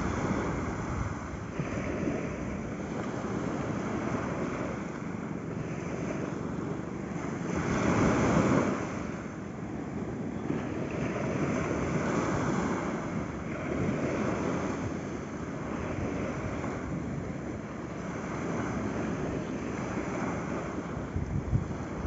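Small waves breaking and washing up on a sandy beach, the surf swelling and fading every few seconds, loudest about eight seconds in.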